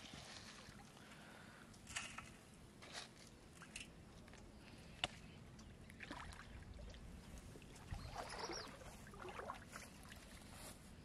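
Faint sloshing and swishing of shallow pond water as someone wades through it, with a few small clicks and knocks; the water sound is strongest about eight seconds in.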